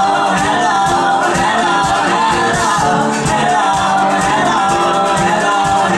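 Live band music with a man and a woman singing together: a strummed ukulele with drums keeping a steady beat.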